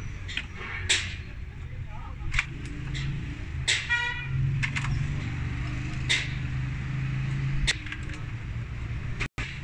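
Sharp metal-on-metal clicks and taps, several spread through, as hand tools work the plunger assembly of an inline diesel injection pump, over a steady low hum. A brief high-pitched tone comes about four seconds in.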